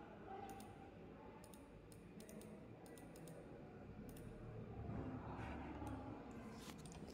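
Faint computer mouse clicks: a string of short, irregularly spaced single and double clicks.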